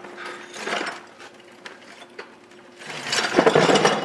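Dense rattling clatter, loud from about three seconds in, over a faint steady hum.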